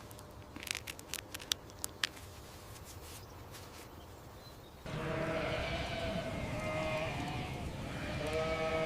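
Several sharp clicks. About five seconds in, a crowd of livestock suddenly starts bleating, with several overlapping calls.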